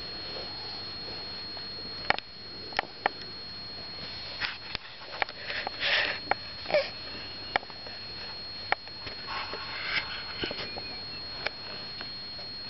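A five-month-old baby breathing and snuffling close up, with scattered sharp little clicks and a few breathy rushes, the strongest near the middle.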